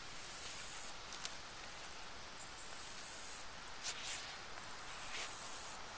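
Insects buzzing: a high, hissing drone that swells and fades in three bursts of about a second each, with a few faint clicks from pistol and holster handling. No gunshot.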